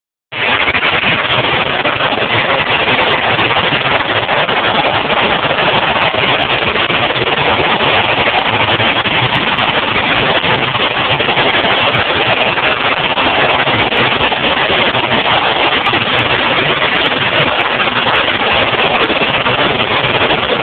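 Demolition derby cars' engines running loud and steady, a dense noise through a phone's microphone.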